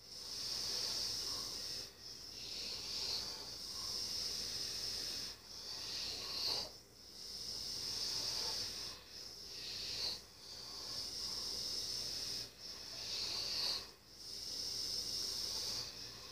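A sleeping person's breathing, a hissing, wheezy sound in long strokes of two to three seconds each, broken by short pauses, about six breaths in all.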